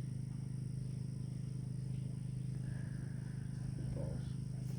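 A steady low mechanical hum with a faint high-pitched whine above it.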